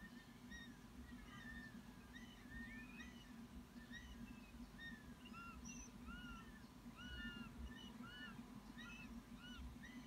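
Faint, rapid chirping calls from young hawks in the nest: many short notes a second, each rising and falling in pitch, overlapping at several pitches.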